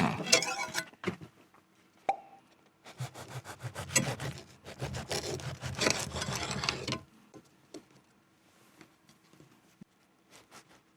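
A burger being handled and eaten close to the microphone: rustling and chewing, with a short burst in the first second and a longer stretch in the middle.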